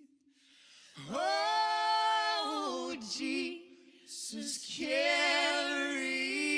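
Background song: a singing voice holds long notes with vibrato, starting about a second in, in two phrases with a short break near the middle.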